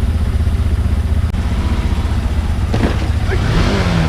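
Motorcycle engine running steadily under way, a low even drone. About three seconds in, a brief rush of noise and then a falling tone.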